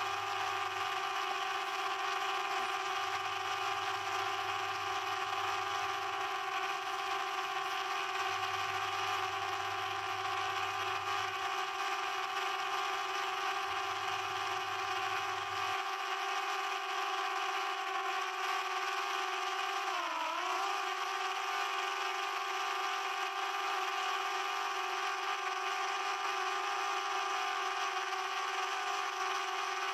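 Quadcopter drone's propellers and motors whining steadily in flight, several pitches held together; about 20 seconds in the pitch dips briefly and comes back as the motors slow and speed up again.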